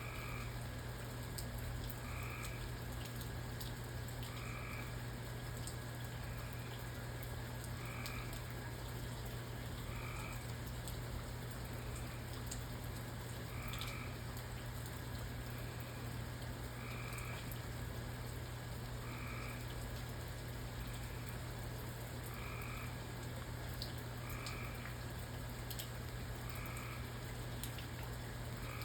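A frog calling at night, short croaks repeating about every two seconds. Under it are a steady low hum and an even hiss with scattered faint ticks.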